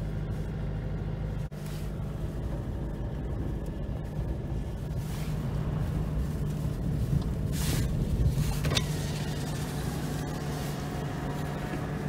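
Car heard from inside the cabin while driving: a steady low drone of engine and tyre noise, with a couple of brief hissing rushes about five and eight seconds in as it runs along a wet dirt road.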